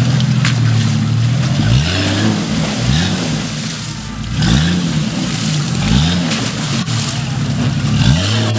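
Jeep Cherokee XJ's engine revved hard about five times in a row, each rev rising and falling, with a steady hiss underneath. The Jeep is spinning its wheels in a shallow stream, trying to climb out.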